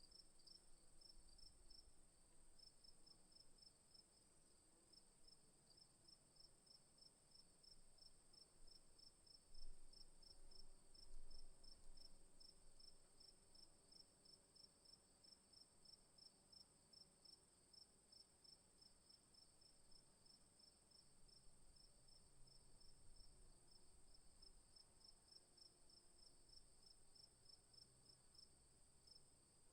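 Faint insects chirping: a steady high-pitched trill with a second insect pulsing several times a second underneath.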